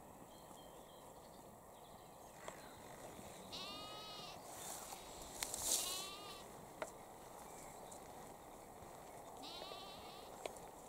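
Sheep bleating three times, each a short wavering call, over a faint outdoor background with a few small clicks.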